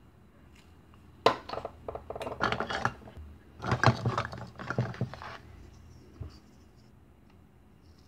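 Hard plastic toy food pieces clattering and knocking against each other and a plastic bowl as hands rummage through them. The clatter comes in two spells of a second or two, followed by one lone knock.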